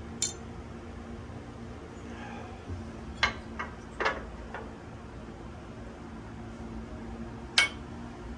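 Sharp metallic clinks and knocks of motorcycle shift-linkage parts and tools being handled, about six in all: one near the start, a cluster around the middle and a loud one near the end, over a steady low hum.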